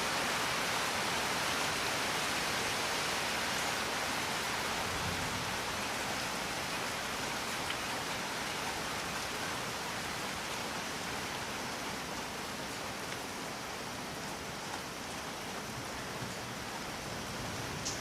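Steady, dense rainfall, an even hiss with a few separate drops standing out, easing very slightly in loudness.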